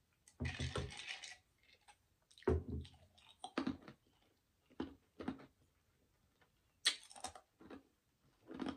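Ice cubes rattling against a glass mug, then ice being crunched between the teeth in a close-miked series of sharp crunches, roughly one a second.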